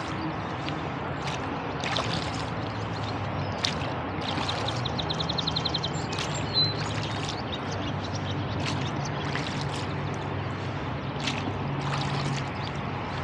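Oars of a rowboat dipping and pulling through river water, with repeated splashes and water trickling and dripping off the blades. A low steady hum runs underneath, and there is one sharp knock about halfway through.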